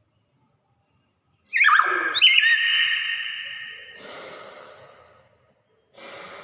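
Hill myna calling: sharp whistled notes that glide up and down about a second and a half in, running into a held high note, followed by two quieter, rough, hissing sounds.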